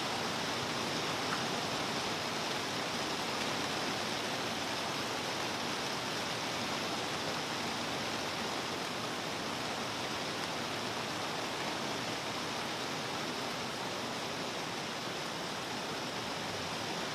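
Steady rain falling onto a pond and the plants around it, an even hiss that holds at the same level throughout.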